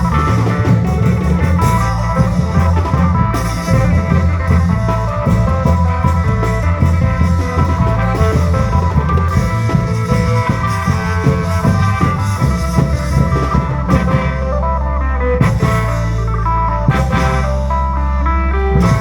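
Isan klong yao long-drum band playing: steady drumming under a heavy bass line and a plucked-string melody.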